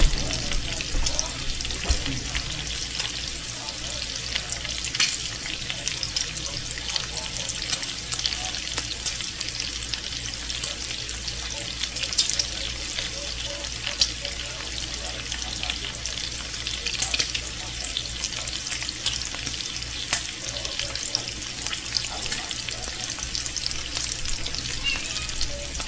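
Bacon frying in a pan: a steady, high sizzle with frequent sharp pops and crackles of spitting fat.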